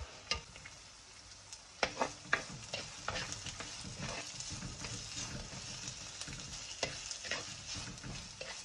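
Sliced onions, green chillies and curry leaves sizzling in hot oil in a clay pot, with a spatula scraping and stirring them against the pot every so often.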